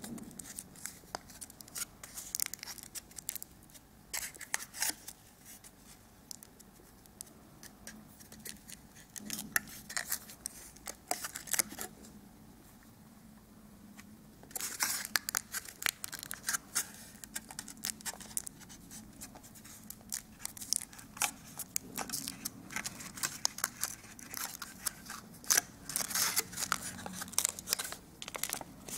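Foil wrapper of a chocolate egg being peeled and torn off by hand, crinkling and crackling in many short bursts. There is a quieter pause about twelve to fourteen seconds in.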